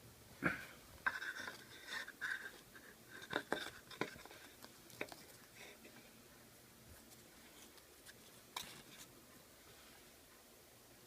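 Light clicks and knocks with short scraping sounds, close together in the first half, one more click about eight and a half seconds in, then only a quiet room.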